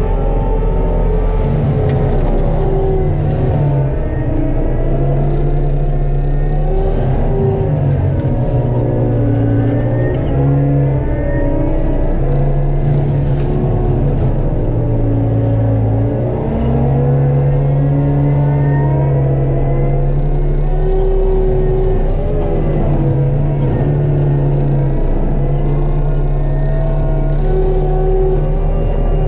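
ASV RT-75HD compact track loader's diesel running hard, driving a Denis Cimaf 150D forestry mulching head through brush. A loud, steady machine sound whose pitch dips and recovers again and again as the cutting head takes on load.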